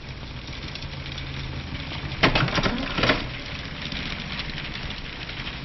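Motion picture film being wound onto a reel: a steady rapid whirring rattle from the reel and the film strip running onto it, louder for about a second around the middle.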